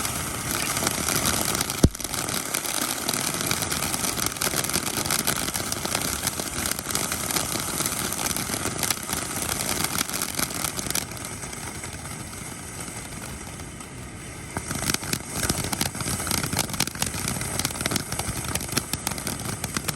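Consumer fireworks going off: a dense, continuous crackling hiss with one sharp bang about two seconds in. It eases off a little past halfway, then the crackling picks up again.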